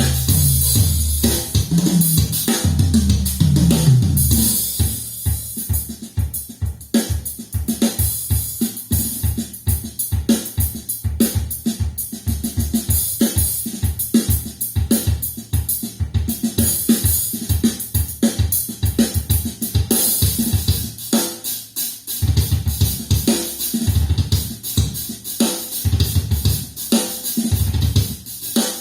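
A drum-heavy recording with kick drum, snare, hi-hat, cymbals and bass guitar, played back loud through Infinity Kappa 7 loudspeakers. Rapid drum strokes run throughout over a moving bass line, which turns to long held low bass notes in the last third.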